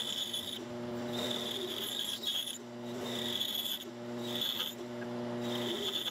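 Band saw running with a steady hum while its blade cuts into a hickory block in several short passes. The cutting noise breaks off and starts again every second or so as the block is fed in and backed out.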